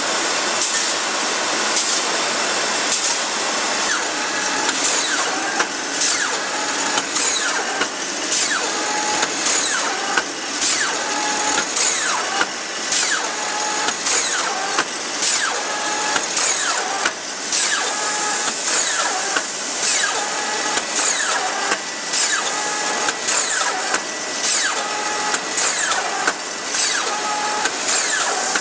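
Steel rolling mill running: a steady mechanical din with frequent sharp clanks about once or twice a second. From a few seconds in, short high tones repeat in a regular pattern about once a second over a thin steady whine.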